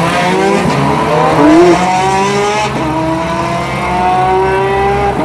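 Ferrari 430 Scuderia's V8 engine accelerating hard, its pitch climbing through the revs, dropping at an upshift about two and a half seconds in, then climbing again in the next gear.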